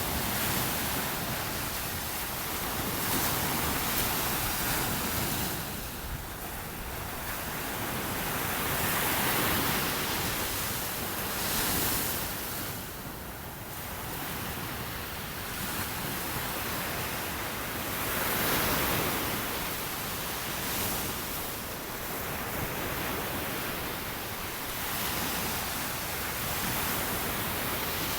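Surf breaking on a sandy beach: a steady wash of waves that swells and falls back every few seconds.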